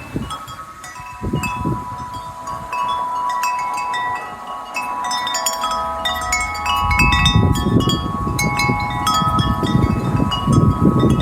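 Several wind chimes ringing in the wind, many overlapping metallic tones struck over and over. A gust of wind builds on the microphone about two-thirds of the way through, and the chimes keep ringing under it.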